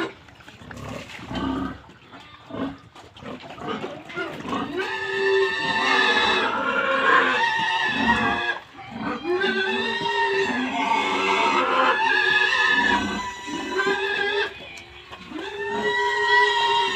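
Pig squealing: a run of loud, drawn-out squeals, each a second or two long, starting about four seconds in after a few quieter grunts and snuffles.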